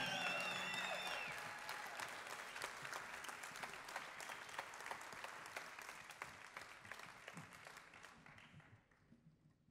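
Theatre audience applauding, the clapping fading away gradually until it is almost gone near the end.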